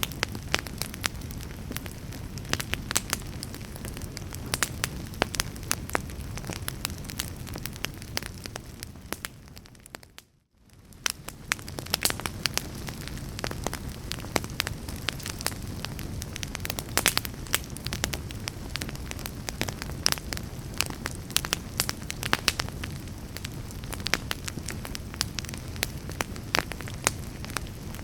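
Fireplace fire crackling, with frequent sharp pops over a steady low rumble of burning. About ten seconds in, the whole sound fades to near silence for a moment, then fades back in.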